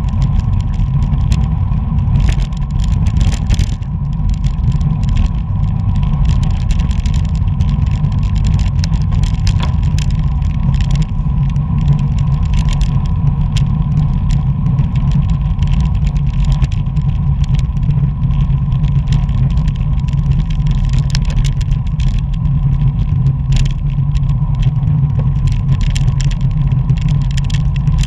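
Wind buffeting the microphone of an action camera on a moving road bicycle, a steady low rumble mixed with tyre and road noise. Scattered clicks and rattles come from the bike, and a faint steady whine runs underneath.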